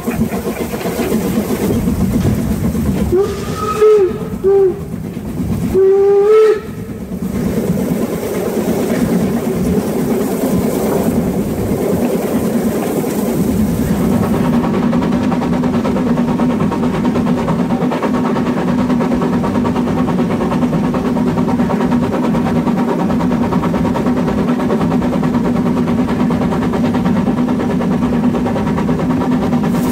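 Narrow-gauge steam locomotive 99 7245, a 2-10-2 tank engine, running under steam, heard close from its front end. Its whistle sounds three short blasts in the first seven seconds; from about halfway through there is a steadier running noise with a low hum.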